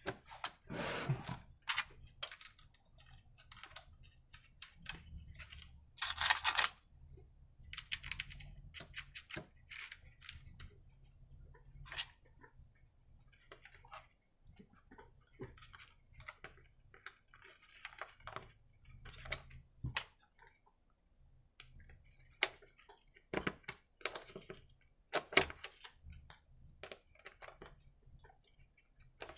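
Hand tools and metal parts clicking and scraping irregularly as the carburettor is screwed back onto a small petrol generator engine, with a longer scraping rasp about six seconds in.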